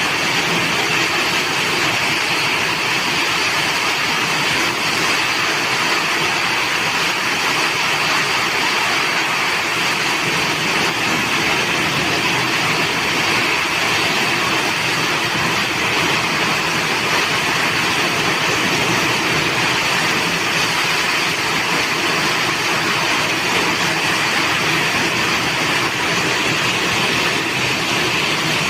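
Heavy tropical rainstorm: a downpour falling in a loud, steady roar of rain without letup.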